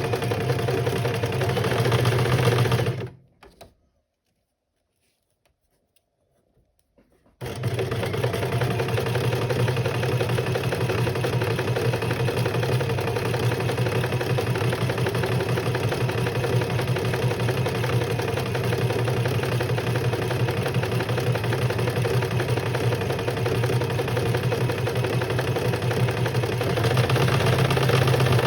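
Electric sewing machine running steadily as it stitches. It stops about three seconds in and starts again about four seconds later.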